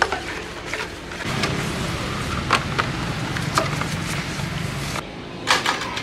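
Plastic fan blade and grille scrubbed with a sponge in a basin of soapy water: sloshing and rubbing with scattered light plastic knocks, over a steady low hum. Near the end the background changes abruptly and two sharp clicks follow.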